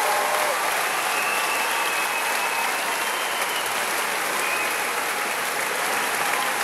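Large audience applauding steadily, with a long whistle carried over it about a second in.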